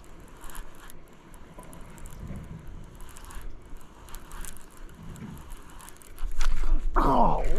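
Faint clicks and rustles of a baitcasting reel and line being handled. About six seconds in comes a sudden loud rumbling commotion as a bass strikes the lure, and near the end a man's startled shout.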